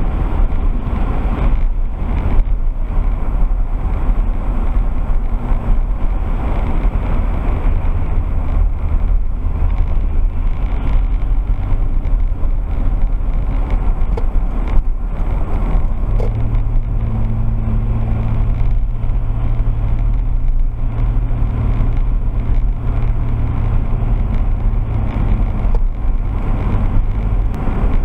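Car engine and road noise inside a moving car, picked up by a dash cam's built-in microphone: a steady low rumble, with an engine hum that steps up in pitch about halfway through.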